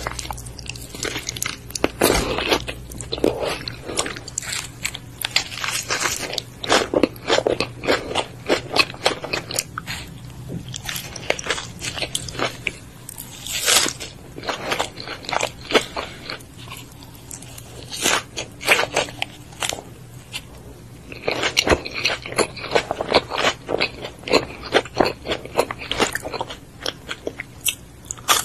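Close-miked eating: a burger with lettuce and tomato and crispy fried nuggets being bitten and chewed, crunchy crackling bites in irregular clusters with wetter chewing between them.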